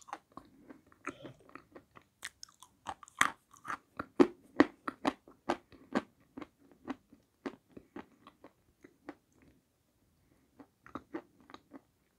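Close-up crunching and chewing of dry edible clay: a dense run of sharp crunches, a brief pause near the end, then a few more.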